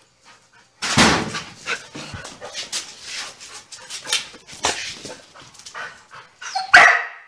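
A small black-and-white dog barking in a loud, irregular run of short calls, the loudest one near the end.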